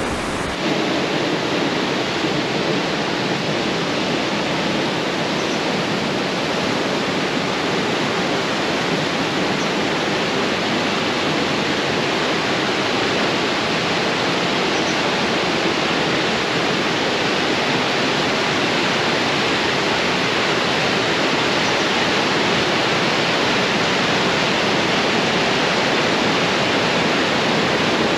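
The Radovna river rushing through its narrow gorge: a steady, even roar of fast water.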